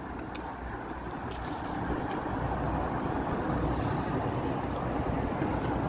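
Wind buffeting the microphone: a steady low rumble that grows a little louder about two seconds in, with a few faint clicks.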